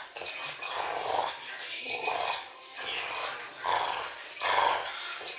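Small dog growling in repeated short bursts while playing tug-of-war, biting at a tennis ball held in a person's hand.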